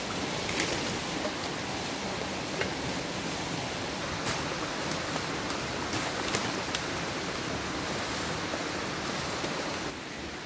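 Steady rush of flowing stream water, with scattered short crackles and snaps of dry leaves and twigs being trodden or handled.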